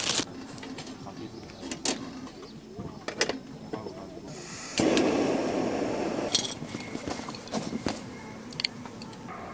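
Clicks and knocks of cooking gear being handled while breakfast is prepared. About five seconds in, a sudden rushing noise starts and fades over a couple of seconds.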